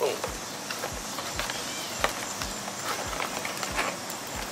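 Plastic clicks and knocks as a fog light bezel is pushed and pulled out of a 2013 Ford Fusion's plastic front bumper cover, its retaining tabs being forced back. A sharp click comes at the start and another about two seconds in, over a faint low thump repeating about three times a second.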